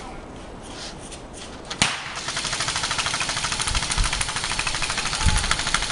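Airsoft electric rifle firing a long full-auto burst, a rapid even rattle that starts about two seconds in after a single sharp snap.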